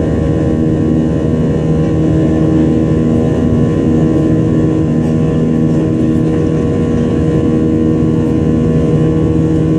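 Boeing 737-800's CFM56-7B jet engines heard from inside the passenger cabin, running steadily: a loud, even noise with several steady humming tones through it.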